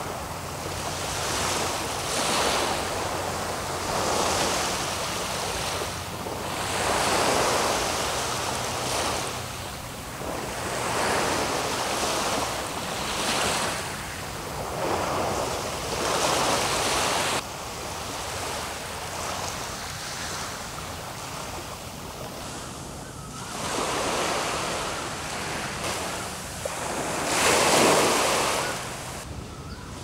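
Sea waves washing up on a beach, a surge every two to three seconds, with a quieter spell in the second half and a louder wave near the end. Some wind on the microphone.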